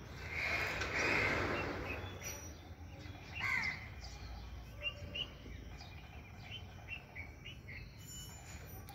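A rush of noise lasting about two seconds near the start, followed by a bird's falling call about three and a half seconds in and scattered short bird chirps.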